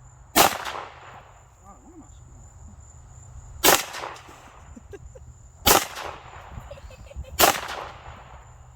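Gunshots from a firearm being fired at targets: four single shots, about two seconds apart, each sharp crack followed by a short echoing tail.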